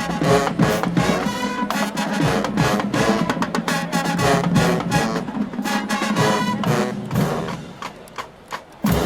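Marching band playing: a drumline beating out a quick rhythm under sustained brass chords, dropping much quieter about seven and a half seconds in.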